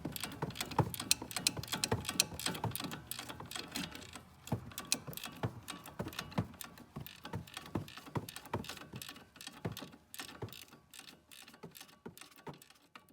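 Ratcheting wrench clicking as it backs a nut off a sway bar end link stud, many quick uneven clicks that thin out and fade near the end.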